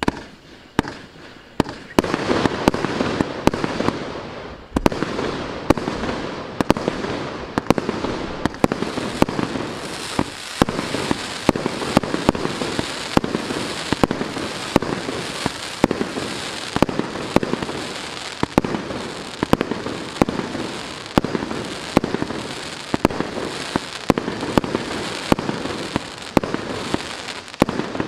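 Maxsem GWM6123 'Classic Show' multi-shot fireworks battery firing: a rapid run of sharp bangs, roughly two a second, over continuous crackling. It starts up within the first two seconds and keeps going steadily throughout.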